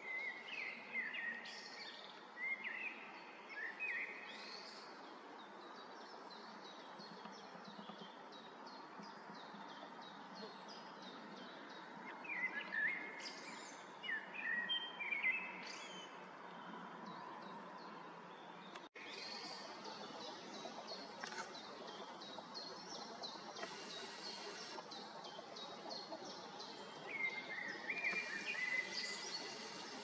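Wild birds singing in several bursts of short, quick phrases over a steady background hiss. The sound cuts out for an instant partway through.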